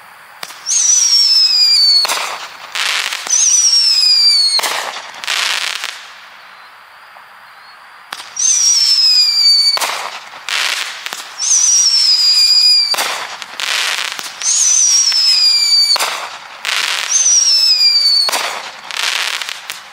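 Consumer firework cake firing a volley of whistling shots. Each shot is a whistle that falls in pitch for about a second, among loud sharp bangs. The volley pauses briefly partway through and then resumes.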